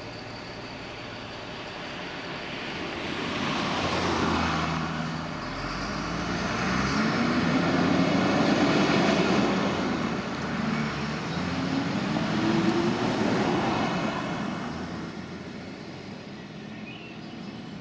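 Diesel lorry engine pulling away and accelerating, its pitch climbing, dropping at a gear change and climbing again, then fading as the lorry moves off.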